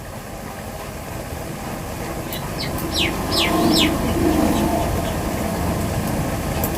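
A bird calls a quick run of four falling whistled notes about halfway through, over a steady mechanical hum that swells for a couple of seconds in the middle.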